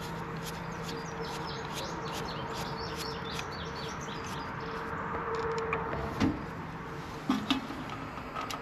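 Small birds chirping in quick, repeated twitters over a steady low hum, with a few light knocks near the end.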